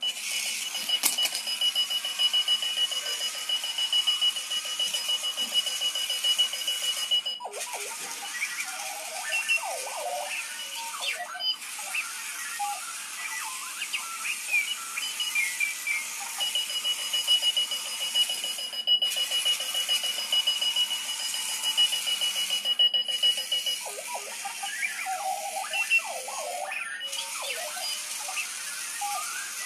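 Runaway alarm clock sounding its alarm in an R2-D2-like robotic pattern. A long steady high beep alternates with stretches of warbling chirps and quick glides, broken by several brief silent gaps.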